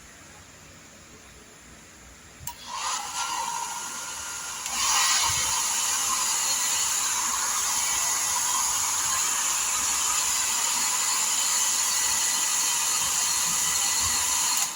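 Imarflex hair dryer clicked on, its fan motor spinning up with a rising whine and blowing on a low setting, then switched up to a louder high setting about two seconds later. It runs steadily with a rushing hiss of air and stops at the very end.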